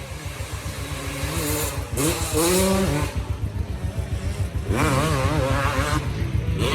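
1996 Honda CR250's two-stroke single-cylinder engine being ridden hard. The revs climb about two seconds in, fall back about a second later, then climb again.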